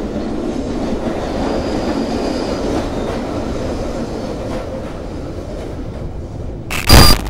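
A train running with a steady rumble, cut through about seven seconds in by a short, very loud burst.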